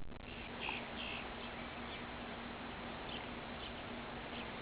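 Steady wind hiss with a few faint, short bird chirps scattered through it.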